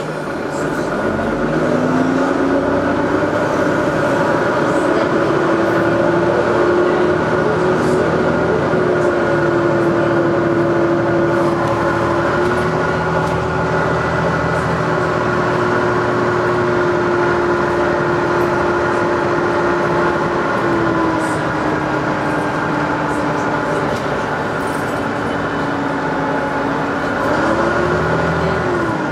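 Dennis Trident double-decker bus heard from inside the lower deck: the diesel engine and gearbox accelerate with a whine that rises in pitch, then hold steady while cruising. The whine drops once later on, then rises and falls again near the end.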